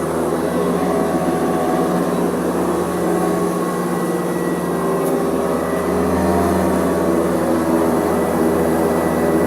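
Hoover Custom Convertible upright vacuum cleaner running steadily, a constant motor hum with whooshing airflow.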